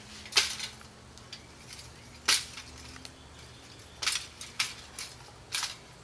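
Metal clattering and clinking as a shotgun-riddled toaster oven is handled: its loose, shot-through sheet metal and wires rattle in five sharp clatters spread through the seconds.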